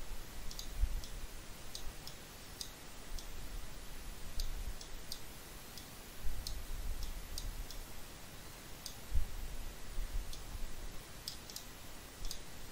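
Computer mouse clicking: well over a dozen short, sharp clicks at an irregular pace, with soft low bumps underneath.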